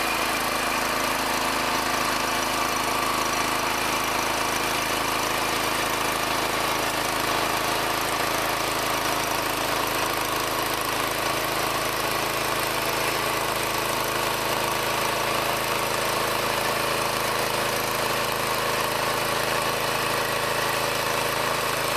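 Small engine of a compact tracked green onion field machine running steadily as it travels along the rows, an even mechanical sound that does not change.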